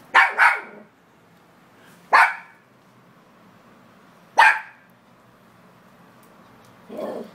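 Small puppy barking: two quick barks at the start, then single barks about two and four seconds in, with a softer, lower sound near the end.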